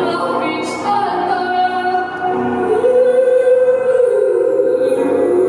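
Woman singing live into a microphone with instrumental accompaniment, drawing out long sung notes; one held note sets in about halfway through and steps down near the end.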